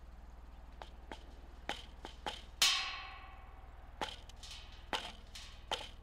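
Pileated woodpecker pecking at food on a wooden platform feeder: about nine sharp, irregular knocks of its bill, the loudest about two and a half seconds in and ringing on briefly.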